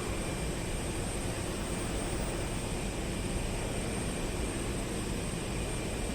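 Jet airliner engines running with a steady, even rumble and hiss, with faint steady high whines on top.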